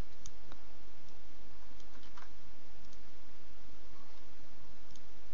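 A few faint computer mouse and keyboard clicks over a steady microphone hiss and a low hum.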